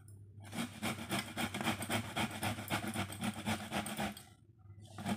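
Peeled bottle gourd being grated on a stainless steel box grater: rapid, even rasping strokes, with a short pause near the end.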